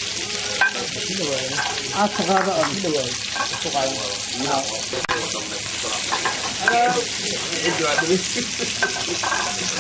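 Fillets sizzling as they fry in hot oil in a stainless steel frying pan, a steady hiss, with a few sharp clicks of metal tongs against the pan.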